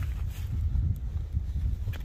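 Wind buffeting the microphone in a steady low rumble, with a few faint clicks and rustles of rucksack straps and buckles being pulled tight.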